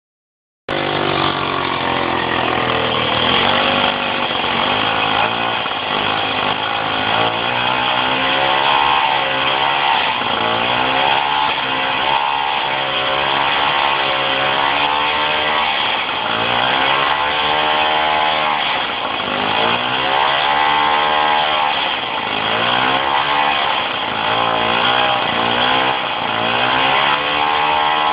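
Supercharged VéloSoleX prototype's 49 cc two-stroke engine running unloaded and not yet tuned, coming in suddenly just under a second in, then revving up and falling back again and again every few seconds.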